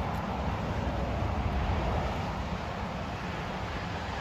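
Wind buffeting the microphone: a steady low rumble with a hiss over it.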